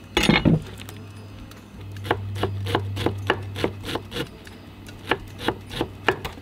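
Wide-bladed cleaver-style knife chopping fresh cilantro on a wooden cutting board. A sharp knock comes just after the start, then from about two seconds in a steady run of chops, about three a second, with a low hum underneath.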